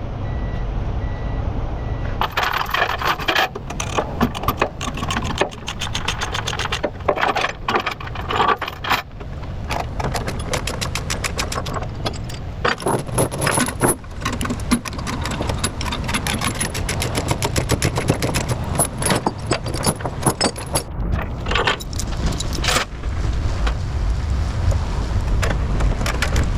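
Steel tie-down chains rattling and clanking as they are unhooked and pulled off a lowboy trailer loaded with an excavator, many irregular metallic clinks one after another, over the low steady running of an engine.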